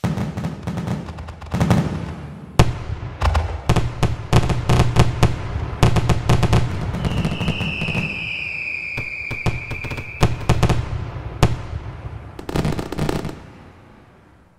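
Fireworks going off: a fast run of sharp cracks and bangs over a low rumble, with a whistling tone falling slightly in pitch for about three seconds partway through, fading out near the end.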